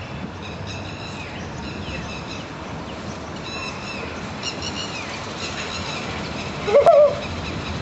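Street ambience: a steady traffic hum with short bird chirps repeating about once a second. A short loud cry rising in pitch comes near the end.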